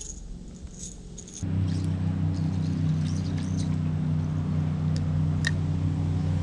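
Faint small clicks and squeaks, then about a second and a half in a boat motor's steady low drone starts abruptly and runs on at an even pitch.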